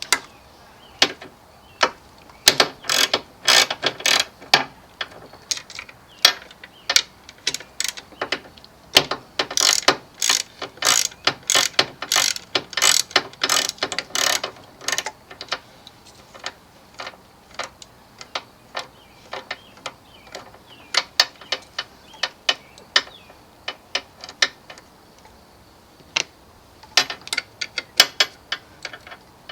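Ratchet wrench clicking in quick runs of strokes, with short pauses between runs. The clicking is busiest in the first half and comes in another run near the end.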